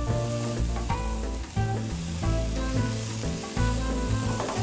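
Mushrooms sizzling in a hot frying pan as they are stirred with a spatula, browning in a little oil, under background music with a stepping bass line and melody.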